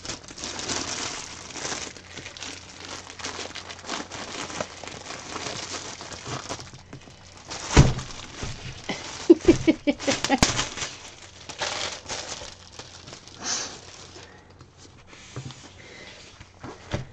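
Crinkling and rustling of a clear plastic sleeve as a rolled diamond-painting canvas is worked back into it, with a couple of louder knocks about eight and ten seconds in.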